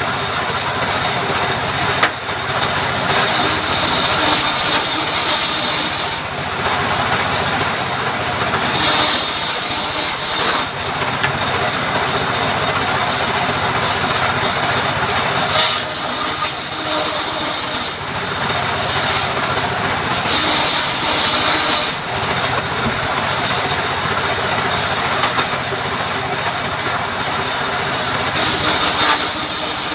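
Powered wood saw running steadily while cutting timber, with a sharper, higher cutting noise that swells several times as the blade works through the wood.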